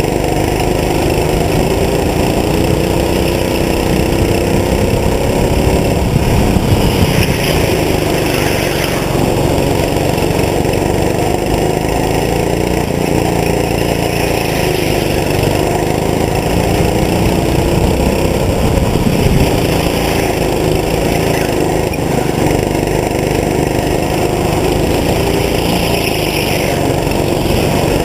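Go-kart engine heard onboard, its pitch rising and falling again and again as the kart accelerates down the straights and lifts for the corners of a lap.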